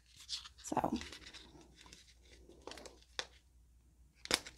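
Plastic pouch of liquid glitter crinkling as it is handled and torn open at the top, in scattered faint crackles with one sharp click near the end.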